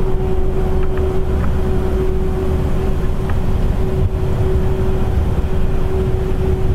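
Distant, unidentified horn-like drone: one steady tone that holds without a break over a low rumble.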